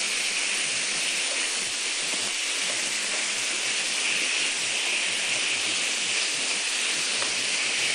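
Chicken pieces frying in olive oil in a pan: a steady sizzle.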